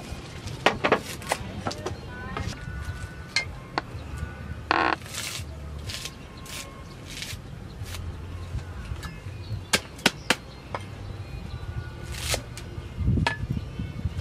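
Cleaver chopping greens on a wooden cutting board and stems being snapped by hand: sharp, irregular cracks and knocks, with a louder group of chops near the end.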